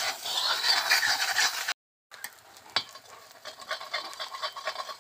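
An egg frying in an iron kadai of spiced beef brain: a loud sizzle that cuts off after nearly two seconds, then a quieter sizzle with a metal spatula stirring and scraping the pan.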